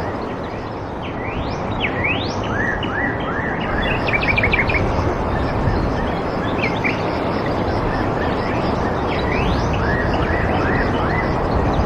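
Several birds calling and chirping, with quick rising whistles, short arched notes and a fast run of chirps about four seconds in, over a steady rushing background noise.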